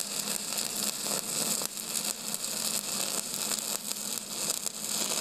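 Stick-welding arc from a Longevity Migweld 200S crackling and hissing steadily, with irregular pops, over a faint low hum.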